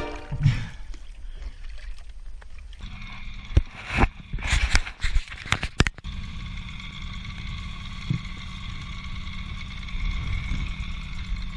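Small outboard motor on an inflatable dinghy running steadily at low speed from about six seconds in, a low rumble with a steady whine over it. Before that, a few sharp knocks and water sloshes.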